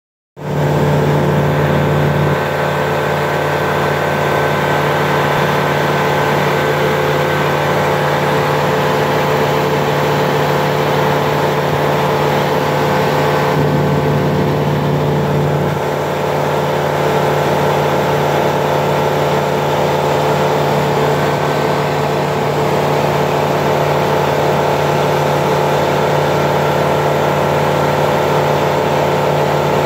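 Cabin of a light propeller aircraft in flight: the engine and propeller drone steadily, a strong low hum with a stack of steady tones above it. The tone shifts briefly about halfway through.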